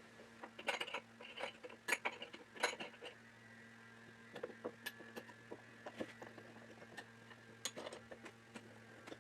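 Scattered light clinks and knocks of small tail-vise parts and hardware being handled, in short clusters with pauses between, over a low steady hum.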